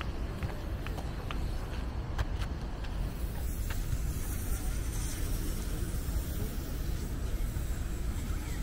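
Steady low rumble of outdoor background noise, with a few light clicks in the first three seconds.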